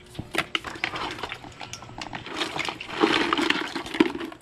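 Scattered clicks and knocks of crab shells and a knife being handled on a wooden board. Past halfway there is a denser clatter, crab shells shifting in a plastic bucket as a hand rummages among them.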